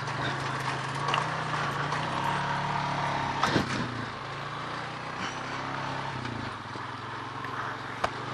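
Four-wheeler (ATV) engine running steadily while being ridden, with a short clatter about three and a half seconds in and a sharp knock near the end.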